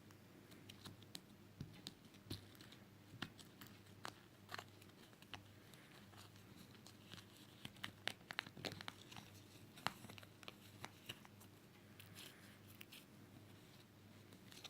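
Slime being squeezed and stretched by hand, making faint, irregular small crackles and pops that come thickest about eight to ten seconds in, over a low steady hum.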